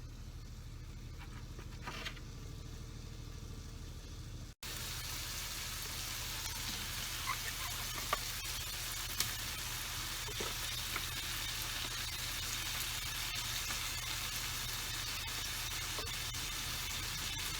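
Food sizzling in a frying pan: a steady hiss with occasional sharp pops, starting after a sudden cut about four and a half seconds in. Before the cut there is only a low hum and one light tap.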